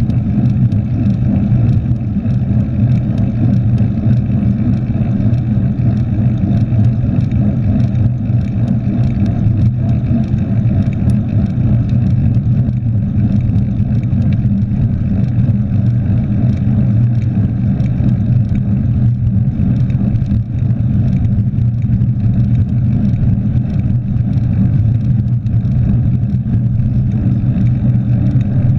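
Steady low rumble of wind buffeting and mountain-bike tyres rolling on tarmac, picked up by a handlebar-mounted GoPro on a moving bike.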